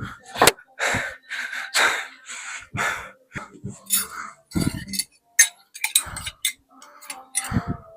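A person breathing hard in short, sharp breaths, about two a second, with a few low thumps among them; it cuts off suddenly at the end.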